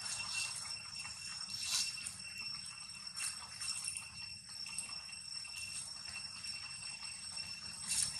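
Steady high-pitched ringing of an insect chorus, with dry leaves rustling briefly a few times as monkeys scuffle over leaf litter: once about two seconds in, again a second later, and near the end.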